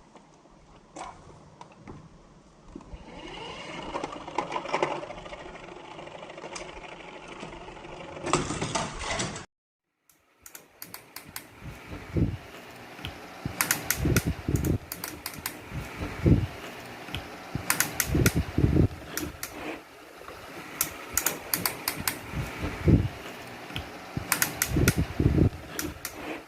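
Hot Wheels die-cast cars and plastic track clattering: a running rattle that builds and ends in a loud burst, then after a sudden cut, repeated clusters of sharp clicks and knocks every second or two.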